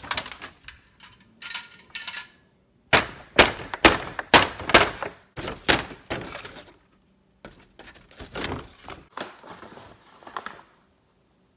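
Brown paper bag crinkling and crackling as it is handled, with a run of loud, sharp crackles about three to five seconds in and softer rustles after.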